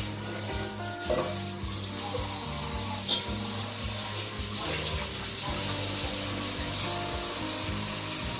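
Kitchen tap running water into a steel pot, with a few sharp clinks of steel dishes, over background music.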